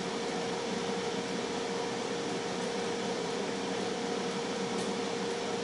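Tristar FR-6989 air fryer running: the steady whir of its hot-air fan with a constant hum.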